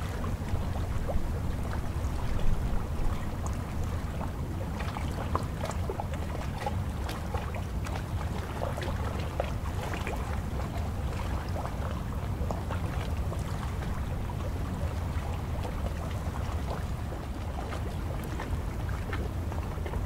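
Choppy water lapping and splashing at the edge of a concrete ramp, in many small irregular splashes, over a steady low rumble of wind on the microphone.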